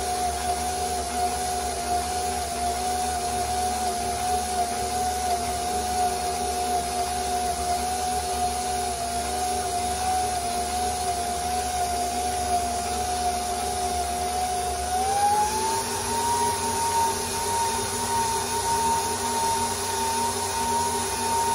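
KitchenAid bowl-lift stand mixer running with a steady motor whine as its dough hook kneads stiff pan dulce dough; about 15 seconds in the whine rises in pitch as the speed is turned up, then holds steady.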